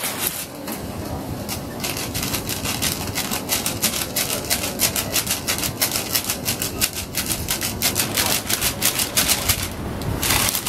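Rapid crackling clicks, many a second, from the hot egg waffle iron. They thicken from about two seconds in and thin out near the end.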